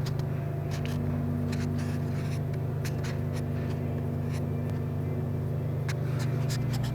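A steady low mechanical hum of several fixed tones, with scattered light clicks and rustles.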